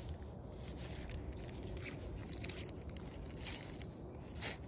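Footsteps on tarmac, roughly two a second, with clothing and phone-handling rustle over a steady low rumble.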